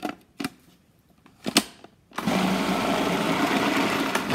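Plastic clicks as a food processor's lid is fitted and locked onto the bowl, then about two seconds in the motor starts and runs steadily, chopping and mixing minced beef with a spice paste.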